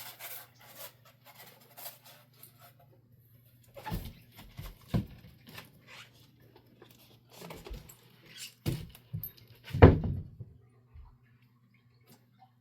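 Packaging being handled while a large RC airplane fuselage is unboxed: scattered rustling and clicks with several thumps, the loudest about ten seconds in, over a faint steady low hum.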